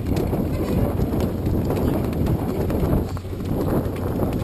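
Wind buffeting the microphone in a low rumble, with irregular knocks and slaps of choppy water against the hull of a moored vessel.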